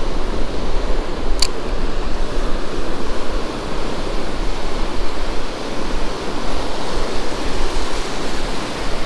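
Ocean surf breaking and washing up the beach, a steady loud rush of noise, with one short high tick about a second and a half in.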